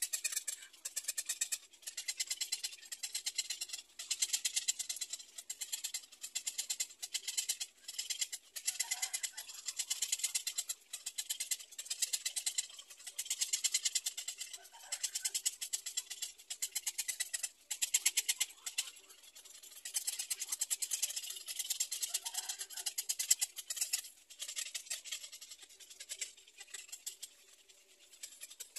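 Black-crowned night heron chicks giving rapid, high ticking chatter in repeated bouts of a second or two with short breaks, the begging chatter of nestlings.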